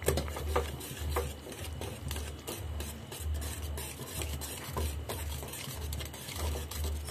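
A utensil stirring agar-agar and sugar into hot water in a stainless steel saucepan to dissolve them: steady, rhythmic swishing about twice a second, with light scrapes against the pan.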